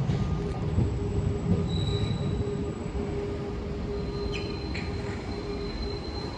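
SMRT C151 metro train pulling in alongside the platform: a steady wheel rumble with a steady whine, and a thin high wheel squeal that comes and goes. A couple of light clicks about four seconds in.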